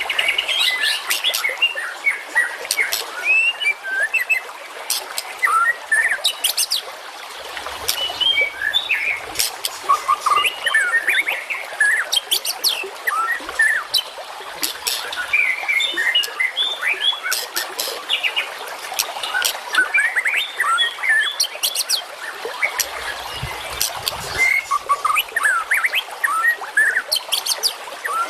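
Dense, continuous chorus of small songbirds chirping and trilling over each other, with frequent sharp, clicking notes. It is a masteran recording, a mix of birdsong played to caged songbirds to teach them.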